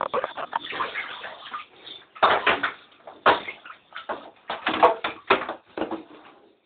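Water splashing in short, irregular bursts as a pet mink plays in it, with louder splashes a little past two seconds in and several more in the second half.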